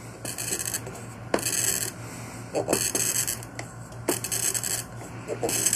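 Glass cutter wheel scoring a glass bottle as the bottle is turned by hand in a wooden jig: a slight crunching of glass that comes in five short passes about a second apart, with small clicks between. It is a light score, not a deep one.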